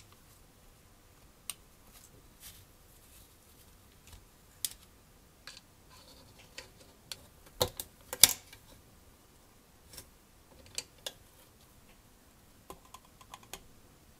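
Scattered small clicks and taps of plastic scale-model interior parts being handled and pressed into place, with a couple of louder snaps about eight seconds in and a quick run of light ticks near the end.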